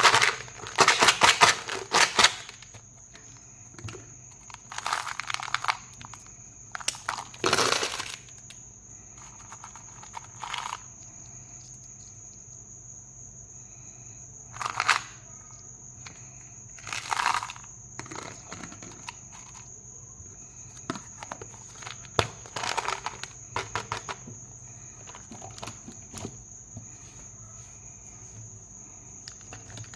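Plastic candy wrappers crinkling and rustling as they are handled and torn open, in a dozen or so separate bursts of rapid crackling with quiet gaps between. A steady high-pitched tone sits underneath.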